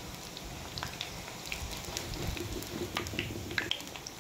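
Corn pakoras deep-frying in hot oil in a kadhai: a steady sizzle with scattered small pops and crackles.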